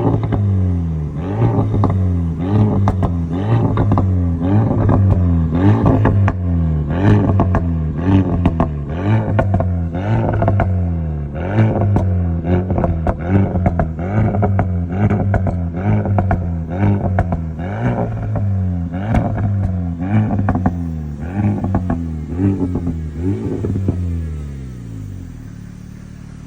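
Renault Mégane RS Trophy's turbocharged four-cylinder engine and exhaust, revved in repeated blips about once a second, each rise in pitch followed by crackles and pops as the revs fall. It fades away near the end.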